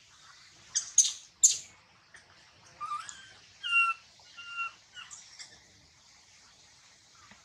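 Baby macaque crying: three harsh, shrill squeals about a second in, then a few short, thin cries, each held on one pitch.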